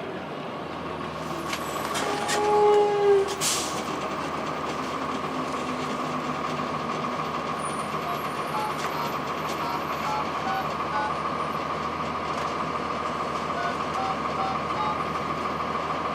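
Interior of a 2002 Blue Bird CS transit bus running, its Cummins ISC inline-six diesel and Allison B400R transmission heard as a steady drone with a constant whine. About two to three seconds in there is a brief squeal, and a short hiss of air follows just after.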